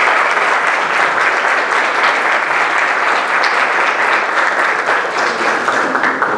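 Audience applauding steadily, dense clapping that eases off right at the end.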